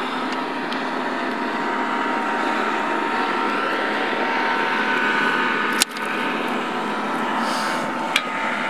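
Motorboat's outboard engine running steadily at speed, with a sharp click and brief dip about six seconds in.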